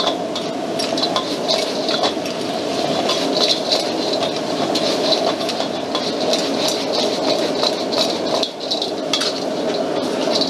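Steel ladle repeatedly scraping and clinking against a wok as clams and basil are stir-fried, over the steady roar of a high-powered gas wok burner.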